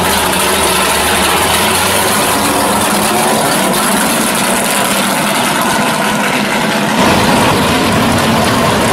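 A 1968 Pontiac GTO drag car's V8 engine running at low speed, loud and steady. About seven seconds in, the sound turns deeper and slightly louder.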